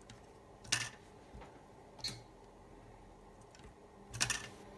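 Three short, sharp clicks over a faint steady background: one about a second in, another a second later, and a double click near the end.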